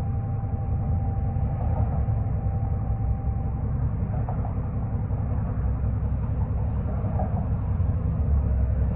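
Cabin noise inside a 2005 New Flyer D40LF diesel city bus under way: a steady low rumble of engine and road. A faint thin whine stops about three and a half seconds in.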